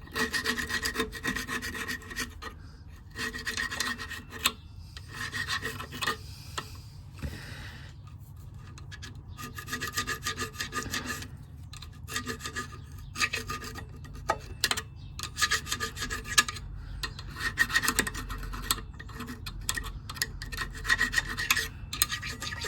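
Stiff nylon brush scrubbing the metal of a motorcycle's rear brake caliper in several bouts of rapid back-and-forth strokes, with short pauses between them.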